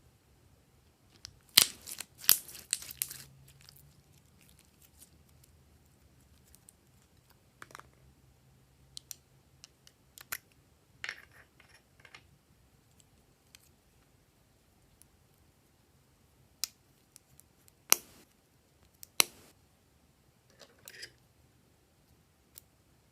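Slime being squished and poked by hand, giving sharp wet clicks and pops: a quick run of them about two seconds in, then single pops every few seconds.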